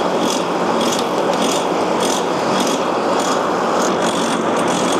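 Hand-cranked forge blower being cranked steadily. It makes a continuous whirring rush with a faint rhythmic pulse about three times a second as it drives air into a blazing wood fire.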